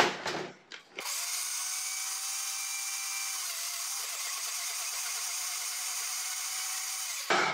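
Countertop blender motor running steadily, puréeing cucumber pieces with a little water. It starts about a second in and stops just before the end.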